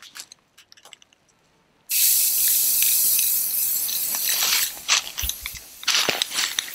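Aerosol spray-paint can spraying: a few faint clicks, then about two seconds in a steady hiss that lasts nearly three seconds, followed by several shorter squirts near the end.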